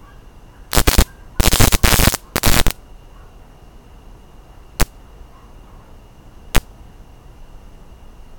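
Electric bug zapper's high-voltage grid arcing as insects strike it: a run of loud crackling zaps in the first three seconds, then two single sharp snaps a couple of seconds apart.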